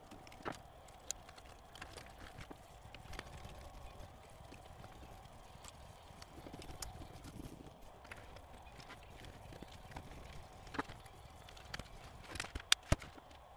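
Scattered light clicks and taps of a screwdriver and small screws working on a cassette deck's circuit-board panel as it is unscrewed and handled, with two sharp, louder clicks near the end.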